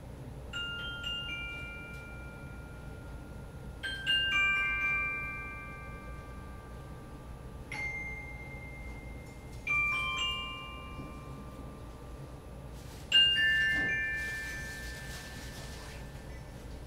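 Tuned metal percussion: five clusters of a few bell-like notes, each struck in quick succession and left to ring out and fade slowly. The loudest cluster comes about thirteen seconds in and is followed by a soft hiss.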